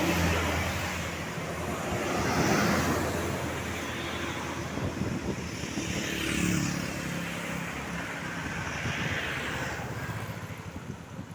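Road traffic passing close by: engines and tyre noise swell and fade as several vehicles go past in turn, about four passes.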